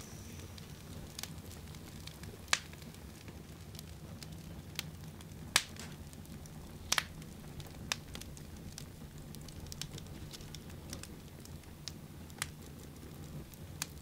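Wood fire burning in a firebox, with sharp irregular crackles and pops from the burning wood over a low steady rumble.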